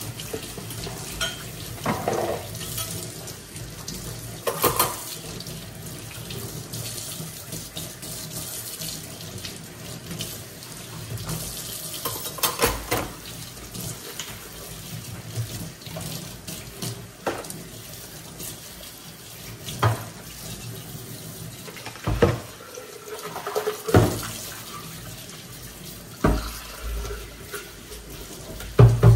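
Kitchen tap running into a stainless steel sink during dishwashing, with a steady splash of water. Dishes and a pan knock and clatter against the sink now and then, louder and more often in the second half.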